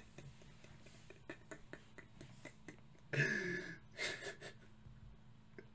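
Faint scattered clicks, then a man's two short wordless vocal outbursts, one about three seconds in and another a second later, gasp-like, with falling pitch.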